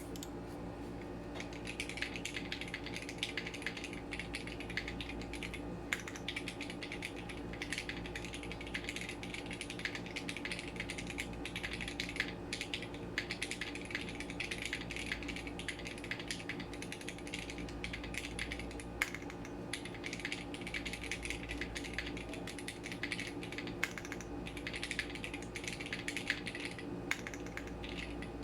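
Typing on a Matrix 6XV 3.0 Corsa custom mechanical keyboard with linear Cherry MX Red switches, GMK keycaps and an aluminium plate with no foam: a fast, uneven run of key clacks that starts about a second and a half in.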